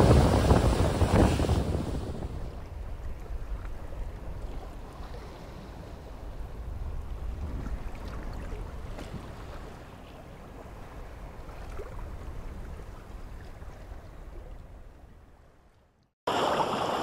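Wind and breaking waves rushing loudly past a sailing yacht heeled over and driving through rough sea, with wind buffeting the microphone. About two seconds in it drops to a much quieter low rumble that fades away. A different, louder sound cuts in abruptly right at the end.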